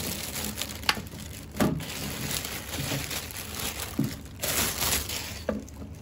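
Thin clear plastic bag crinkling and rustling in swells as it is pulled off a stainless-steel electric kettle, with a few sharp clicks along the way.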